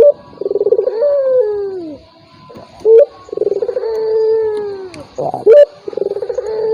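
Puter dove cooing in a repeated three-part phrase: a short sharp note, a rolling trill, then a long falling coo. The phrase comes about every two and a half seconds, nearly three times in all. It is a lure call played to set off a dove that is reluctant to call.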